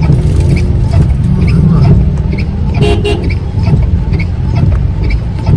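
Steady low rumble of a car driving in the rain, heard from inside the cabin, with faint regular ticks about once a second. A short car horn toot sounds about three seconds in.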